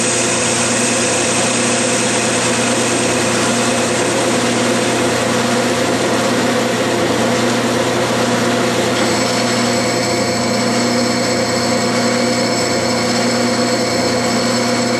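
Clausing lathe running at about 600 RPM while a turning tool takes a facing cut across the end of a cold-rolled steel bar. It makes a steady machine whine with several constant tones, and the higher tones change about nine seconds in.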